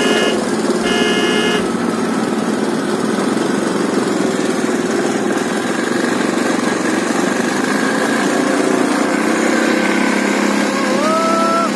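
All-terrain vehicle engine running steadily while riding. A horn sounds twice in the first two seconds, and a short rising call is heard near the end.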